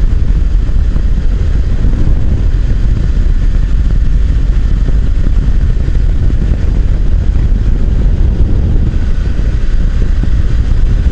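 Steady, loud wind rush on the microphone of a motorcycle riding along at road speed, with the machine's running noise underneath.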